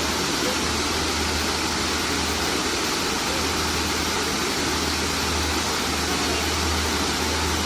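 Waterfall: water falling in a steady, even rush, with a low rumble underneath.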